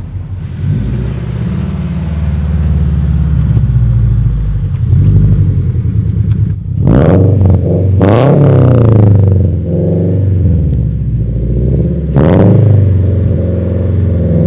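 2022 Toyota GR86's 2.4-litre flat-four running through a JDL single exit exhaust and catless unequal-length header, revved up and back down several times over a steady engine note, with sharp blips about halfway through and again near the end.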